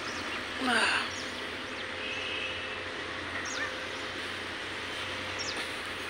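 Outdoor park ambience: a steady background hiss with a few short, high bird chirps scattered through it, and one brief louder sweeping sound about a second in.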